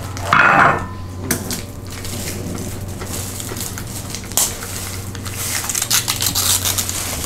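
Crinkling, crackling and clicking of small plastic packets being worked open by hand, busiest in the second half, over a steady low hum.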